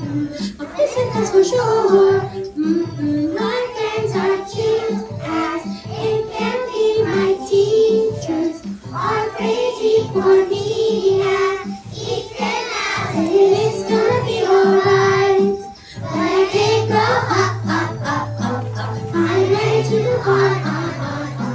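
A group of young children singing a song in unison over backing music.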